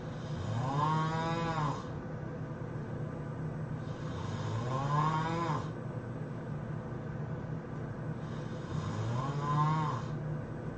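A man snoring loudly: three long snores about four seconds apart, each a drawn-out droning tone that rises in pitch and then holds, with a breathy rasp on top.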